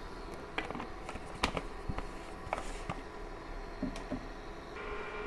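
Quiet kitchen with a steady low hum and a scattered handful of faint ticks and clicks as cooking oil heats in a stainless steel frying pan, not yet sizzling.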